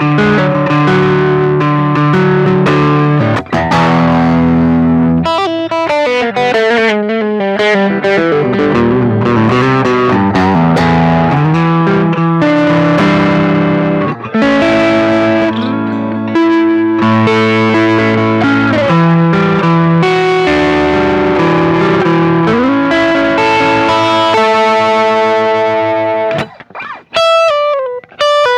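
Electric guitar played through a Ross compressor into overdrive and boost pedals, giving sustained, lightly distorted notes with string bends. Near the end it breaks off briefly several times, then plays wavering bent notes.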